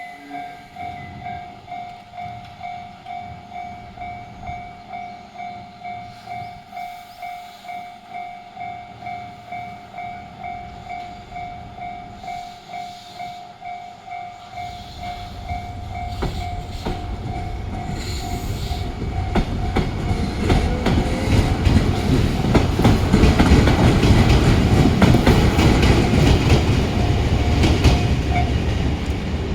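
Railway level-crossing alarm ringing in the JR standard electronic tone, about two dings a second, fairly loud. About halfway through a train approaches and runs over the crossing, its wheels clacking on the rails, and it becomes the loudest sound. The alarm stops shortly before the end.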